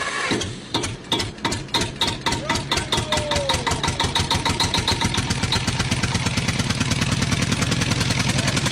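A motor or engine running with a rapid, regular beat that gradually speeds up.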